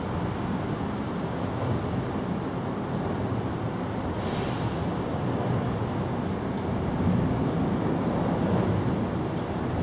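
Steady low background rumble, with a short hiss about four seconds in.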